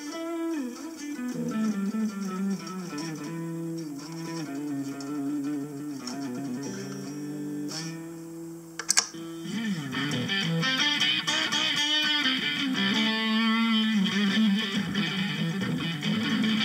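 Electric guitar played through Harley Benton DNAfx GiT multi-effects presets: single-note melodic lines with bends and vibrato. A sharp click about nine seconds in is followed by a brighter tone.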